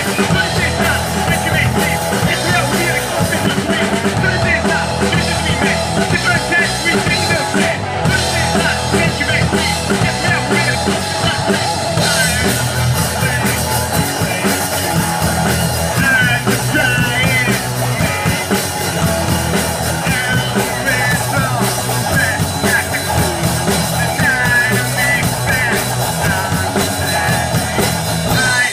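Live rock band playing: electric guitar, bass guitar and a Ludwig drum kit, with a male singer coming in at times.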